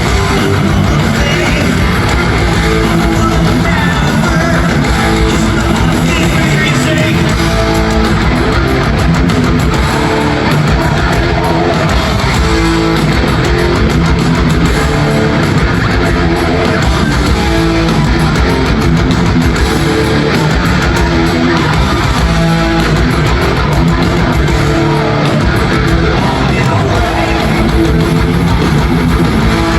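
Heavy metal music: fast, distorted electric guitar riffing over bass and drums.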